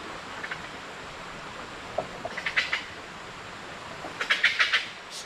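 Two bursts of rapid, chattering animal calls, about two seconds apart, over a steady rush of flowing water.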